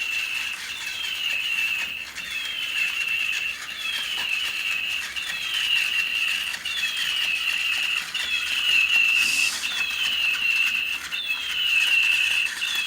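Electronic toy bird chirping over and over: the same short call, sliding down in pitch and then holding, repeats at an even pace of about once a second. A brief hiss about nine seconds in.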